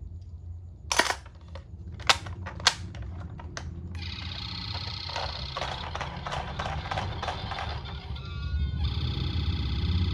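A few sharp clicks, then a toy ambulance's electronic siren sounding from about four seconds in: a buzzy pitched sound pulsing several times a second, which changes near the end to a steady tone after a short rising glide.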